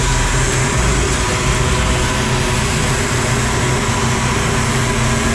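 Loud, steady engine noise of heavy machinery running without change, a constant low hum under a wash of mechanical noise.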